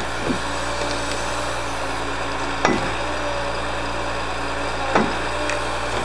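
Logging truck's diesel engine running steadily to drive its hydraulic log-loading crane, with three sharp wooden knocks as logs strike the load: just after the start, about two and a half seconds in, and about five seconds in.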